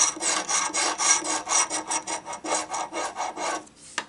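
A coin scraped rapidly back and forth over the latex scratch-off coating of a lottery ticket, about six strokes a second, stopping shortly before the end.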